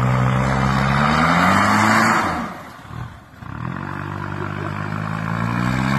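Mitsubishi L200 pickup's engine revving up twice, each time rising steadily in pitch, with a brief drop about two and a half seconds in, as its off-road tyres churn through snow.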